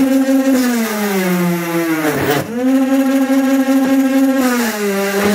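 Electric motor of a ZDN-16 three-bit frame-drilling machine running at a steady pitch. The pitch sags twice as the 3 mm drill bits bore into a wooden hive-frame side bar, and the motor nearly stops for a moment about two seconds in before picking up again.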